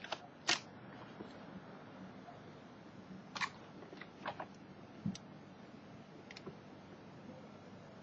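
A few faint, scattered clicks and taps of hands handling hard plastic: a 12 V cigarette-lighter socket and the phone-charger plug pushed into it, with the loudest click about half a second in, over a faint low steady hum.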